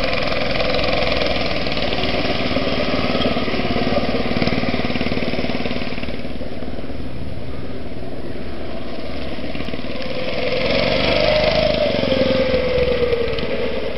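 Monowheel's engine running steadily, growing louder about ten seconds in, then falling in pitch near the end.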